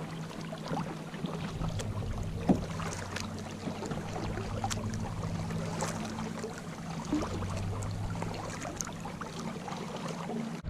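Kayak moving over the water: small splashes and scattered knocks against the hull, over a steady low hum.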